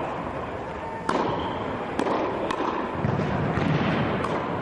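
Tennis balls being struck with a racket and bouncing on the court: several sharp pops about a second apart, over a steady background hum.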